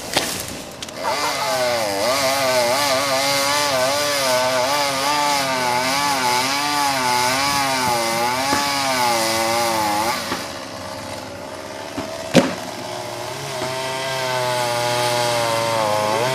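Chainsaw running under load while cutting into a tree, its pitch wavering up and down with the cut. It eases off about ten seconds in, a single sharp knock comes a couple of seconds later, and then the saw runs again.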